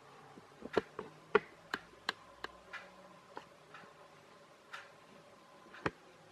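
Irregular light clicks and taps of small hard parts being handled and set down, about a dozen in all, the loudest about a second and a half in.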